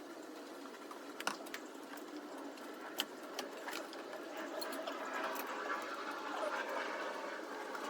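Scattered sharp clicks and light clinks of hand work, such as tools and parts touching metal, over a faint hiss; the loudest clicks come about one and three seconds in.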